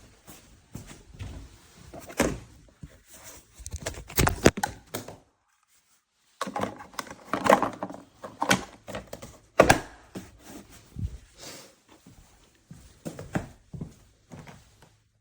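Irregular clunks and knocks, as of hard objects being handled and set down, with a sudden break of about a second just past the middle.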